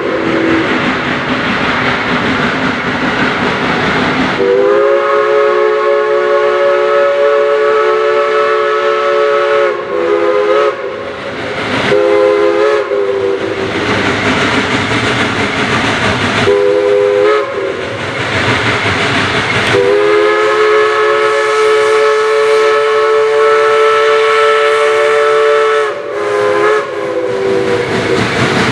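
Steam whistle of Heisler locomotive No. 6, several notes sounding together as a chord, blown in two long blasts of about five and six seconds with several short toots between and after them, over the steady working noise of the approaching steam locomotive and its freight train.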